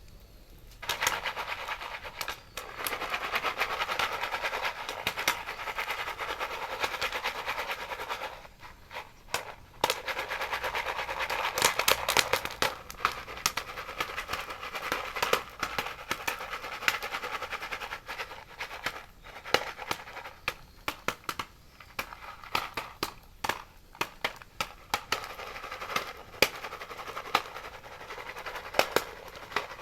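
Campfire of bamboo and oak logs crackling and popping: a dense rapid crackle starting about a second in, thinning after about eight seconds into scattered sharp pops.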